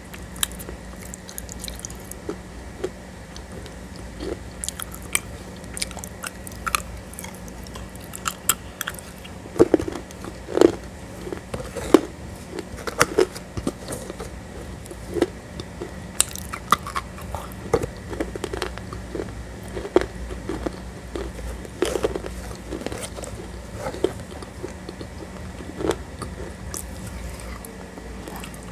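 Close-miked eating sounds: chewing and crunching of a thick paste eaten by hand, with irregular crisp clicks and crackles.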